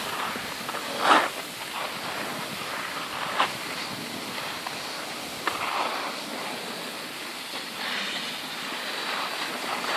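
Skis sliding and scraping over packed snow, with a few louder swishes from edges biting in turns, over wind rushing on the microphone.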